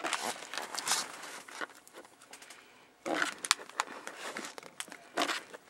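Plastic snack bag crinkling and crackling as it is handled, in two spells with a pause of about a second in the middle.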